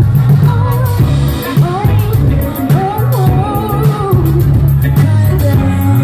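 Live soul band playing: a male lead singer's wavering sung melody over bass, guitar and a drum kit with steady cymbal ticks, heard from among the crowd.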